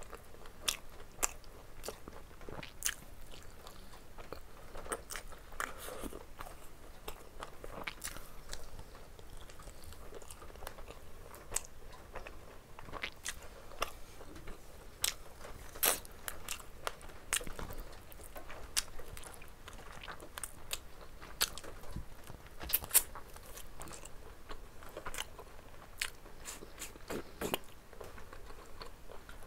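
A person eating by hand: biting into curried meat and chewing, with irregular wet smacks and crunches.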